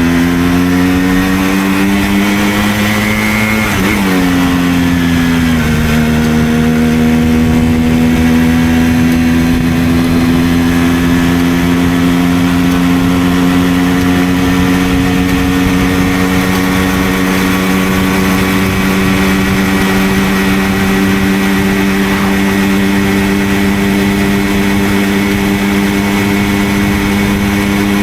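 Simson moped's single-cylinder two-stroke engine under way. The revs climb for the first few seconds, fall back between about four and six seconds in as it shifts up, then hold at a steady cruise with a slow rise in pitch.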